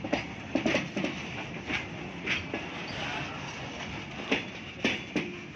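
Indian Railways goods train's loaded flat wagons rolling past close by, wheels clattering on the rails with a steady rumble and a dozen or so irregular sharp knocks.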